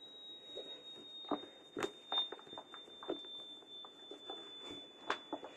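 A faint, steady high-pitched tone that drifts slowly lower in pitch, with scattered small clicks and crackles over it.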